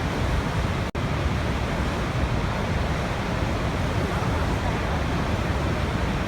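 Waterfall: a steady, even rush of falling water, cutting out for an instant about a second in.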